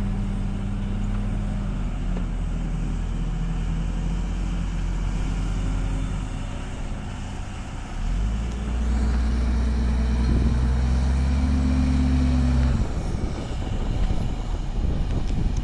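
Tata LPK 3118 tipper truck's diesel engine labouring as the loaded truck climbs a dusty track. About eight seconds in the engine gets louder, its pitch creeping up. Just before thirteen seconds it cuts off suddenly, leaving a rough rushing noise.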